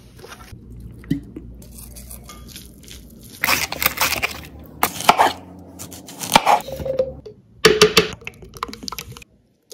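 Kitchen prep noises: a red onion pushed across a mandolin slicer in a few rough scraping strokes, then a spoon clicking and scraping mustard into a plastic blender jar.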